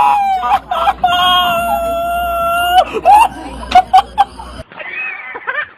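A person screaming: one long, steady, high-pitched scream held for nearly two seconds, with shorter cries and yelps before and after it. The sound cuts off suddenly near the end.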